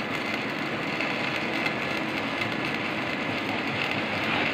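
Steady mechanical running noise with a hiss, from machinery, with no distinct strikes or pauses.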